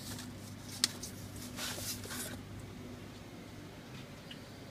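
Plastic ingredient canister being taken out of a Westomatic Sigma coffee vending machine: a sharp click about a second in, then a brief scraping slide, over a faint steady hum.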